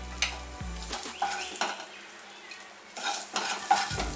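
A spatula scraping and tapping against a nonstick kadai as shallow-fried boiled eggs are lifted out, several short scrapes and knocks, over a light sizzle of the oil and spices left in the pan.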